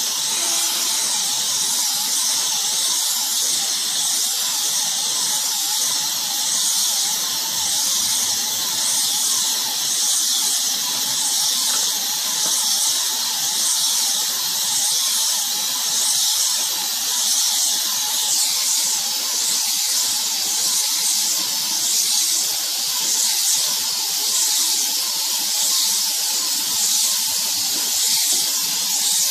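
Hose-fed paint spray gun hissing steadily as it sprays roof paint onto terracotta roof tiles, the hiss pulsing slightly and evenly, with a faint wavering whine beneath it.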